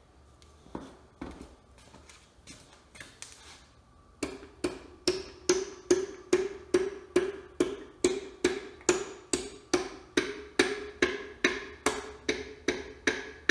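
Light, repeated taps of a rubber-handled hammer driving a piston and its rings down through a ring compressor into a small-block Chevy 350 cylinder. For about four seconds the taps are soft and sparse. Then they become a steady run of about three a second, each with a short metallic ring.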